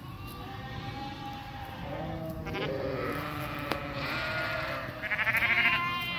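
A flock of sheep bleating, many calls overlapping near and far, the loudest a wavering bleat about five seconds in. A single sharp click a little before four seconds.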